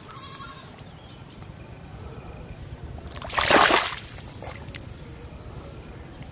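Hand splashing and churning in shallow muddy water, with one loud splash lasting under a second about three and a half seconds in.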